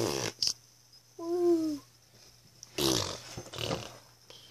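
A child's voice holding one long note that drops in pitch at the end, then about a second later a short, rough, animal-like vocal noise. There is brief rustling of toys being handled at the start.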